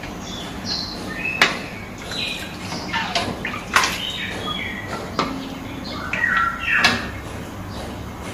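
Metal spatula scraping and clinking against a metal wok while stirring coconut milk as it heats, with a few sharp knocks of the spatula on the pan and short squeaky scrapes between them.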